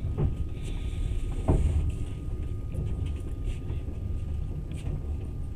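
Moving passenger train heard from inside the carriage: a steady low running rumble, with two quick downward-sliding sounds, about a quarter of a second and a second and a half in, the second the loudest, and a faint steady high whine underneath.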